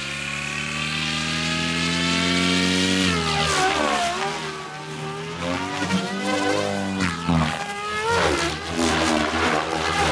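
Electric Goblin Kraken 3D RC helicopter's motor and rotor whine rising steadily in pitch for about three seconds as it lifts off. It then swings rapidly up and down in pitch through hard 3D manoeuvres.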